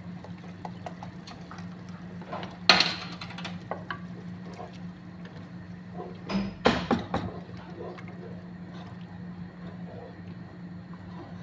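Liquid poured from a carton into a cooking pan, over a steady low kitchen hum. A sharp clatter of a utensil against the pan comes about three seconds in, and a short run of knocks comes a little before seven seconds.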